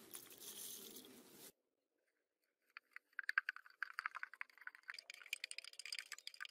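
White granules poured from a plastic bag into a steel bucket of water, a brief hiss. After a short pause, a flat stick stirs the mix, with fast scraping and clicking of stick and undissolved granules against the steel bucket.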